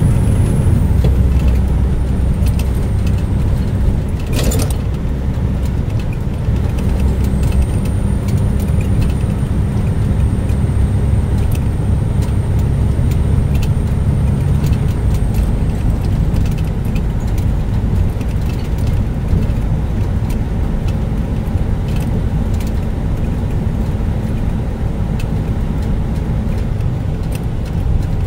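Car driving, with steady engine and road rumble and small rattles throughout. A single sharp knock comes about four seconds in, and a faint high whine sounds for several seconds in the middle.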